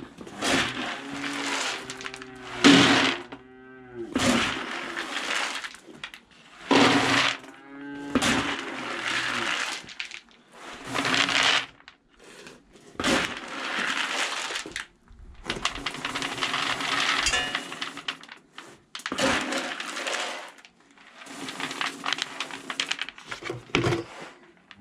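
Calf nuts (feed pellets) poured and scooped into a bucket in repeated bursts of a second or two each, with short pauses between.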